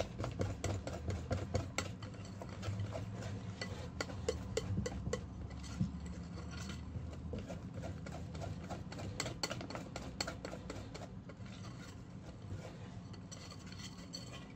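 Wire balloon whisk beating thick chocolate cake batter by hand in a glass bowl: a rapid, uneven run of clicks and scrapes as the tines hit the bowl, under a low steady hum.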